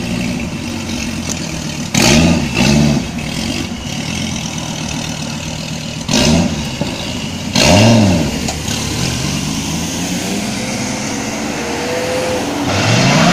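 Dodge SRT Viper's 8.4-litre V10 revved in short blips: two quick blips about two seconds in and two more around six and eight seconds, idling in between. Another rev builds near the end as the car pulls away.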